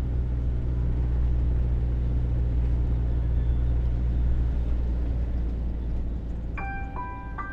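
Low, steady road rumble inside a moving car's cabin, easing off somewhat over the last few seconds. Near the end a few bell-like music notes ring in.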